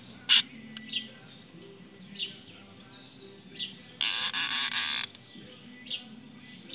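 Birds chirping with short falling calls throughout, and a sharp click just after the start. About four seconds in, a steady buzz of just over a second: the baitcasting reel's drag giving line to a hooked pirarara (red-tailed catfish) as it pulls.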